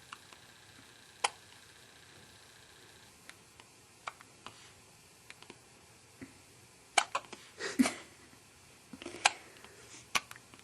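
Baby hiccuping: short, sharp hics at irregular intervals of about one to three seconds, louder and closer together in the second half, one or two with a little voice in them.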